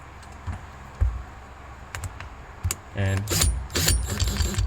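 A bit being fitted into a power drill's chuck and tightened: scattered sharp clicks and knocks, then a denser run of ratcheting clicks near the end.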